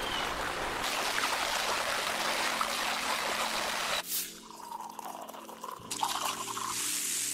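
AI-generated (Sora 2) soundtrack of flowing water: a steady rush of a river, then about four seconds in a sudden cut to quieter trickling and a pour of water into a can, with a hiss near the end.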